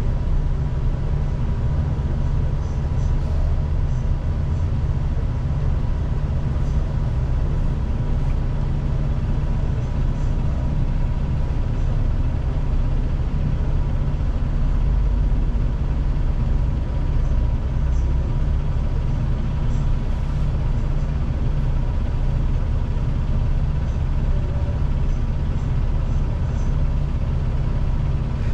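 Seoul city bus running, heard inside the cabin from the rear seat: a steady low engine and road rumble with a faint steady high tone over it.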